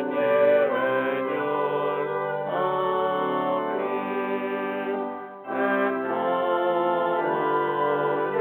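Closing postlude music of a church service: sustained brass-like chords and melody, with a short break between phrases about five seconds in.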